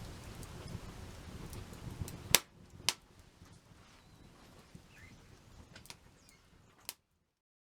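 Wood campfire crackling, with two loud sharp pops a moment apart about two seconds in, then quieter scattered snaps and a last pop before the sound cuts off.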